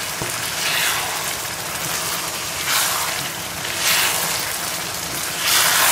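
A wooden spoon stirring rice through bubbling, sizzling liquid in a frying pan, with several swells as the spoon sweeps round. The rice water is nearly absorbed.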